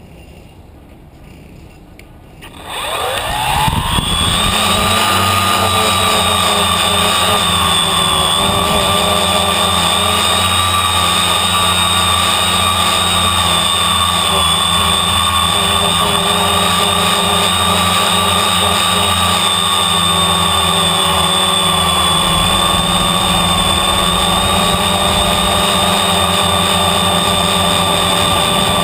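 Small electric drone's motors and propellers spinning up about three seconds in, the pitch gliding quickly upward, then settling into a loud, steady, high whine as it lifts off and flies.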